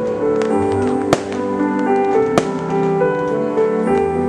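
Fireworks show music with held notes played over loudspeakers, cut by sharp firework bangs, a loud one about a second in and another a little past halfway, with smaller pops between.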